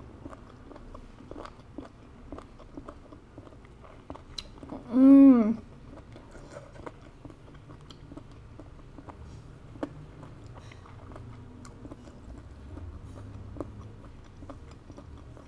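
Close-up mouth sounds of chewing tough, chewy cooked conch meat: many soft, wet clicks and smacks. About five seconds in, a short hummed 'mmm' of enjoyment rises and falls in pitch, the loudest sound in the stretch.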